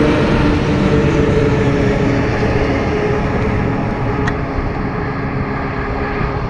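Loaded logging truck driving past on the highway: steady diesel engine and tyre rumble that slowly fades as it pulls away, with lighter traffic behind it.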